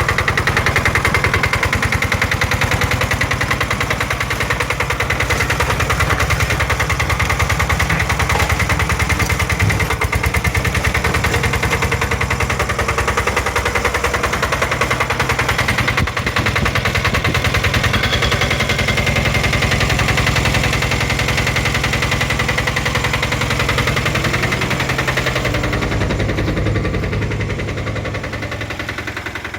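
Engine of a YFW2000DE steel-crawler dump carrier running steadily, with a fast, even firing beat. It fades out near the end.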